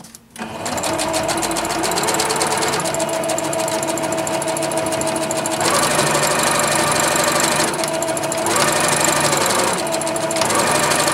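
Electric domestic sewing machine stitching through layered fabric scraps: the motor whirs and the needle chatters fast and steady. It starts about half a second in, and the speed shifts slightly a few times.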